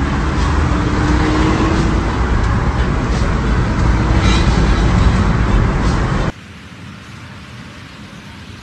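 Loud road and wind noise inside a car travelling fast, with a faint rising engine note in the first couple of seconds and a few sharp cracks about four seconds in as a car ahead hits and rides over the barrier. The noise cuts off suddenly about six seconds in, leaving a quieter steady hiss.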